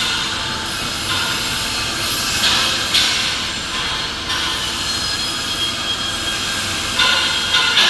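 Steady industrial workshop noise in a large steel fabrication hall, a continuous mechanical rumble and hiss with brief louder hissing surges about two and a half seconds, three seconds and seven seconds in.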